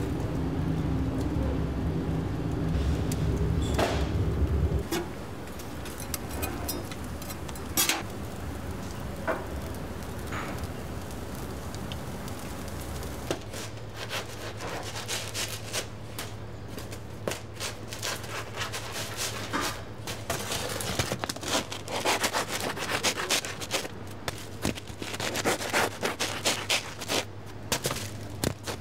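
A bread knife saws through crusty bread rolls on a plastic cutting board, making quick, uneven scraping strokes, over a steady low hum. During the first few seconds a louder low hum runs, then cuts off suddenly.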